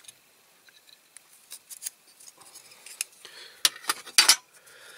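Small hard plastic and metal parts of a diecast model clicking and clinking as they are handled and worked apart, the clear plastic window unit being eased out of the body. The clicks grow more frequent from about three seconds in, loudest just after four seconds.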